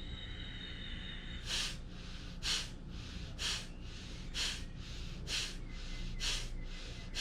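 Kapalbhati breathing: short, forceful exhalations pushed out through the nose, about one a second, starting about a second and a half in.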